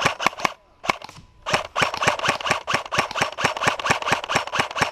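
Airsoft guns firing: a few quick shots, a brief pause, then rapid fire from about a second and a half in.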